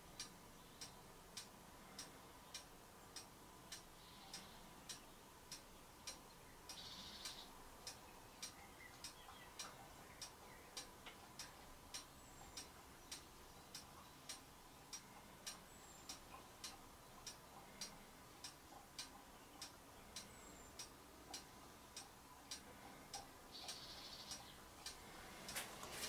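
Faint, steady ticking, a little under two ticks a second, over near-silent room tone.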